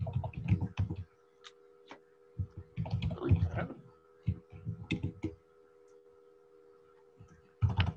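Computer mouse clicks and keyboard keystrokes in short clusters separated by pauses, over a faint steady hum.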